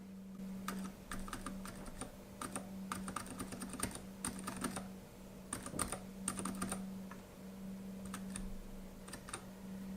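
Zilent V2 62-gram silent tactile mechanical keyboard switch pressed and released over and over in a switch tester, giving quiet, irregular clacks.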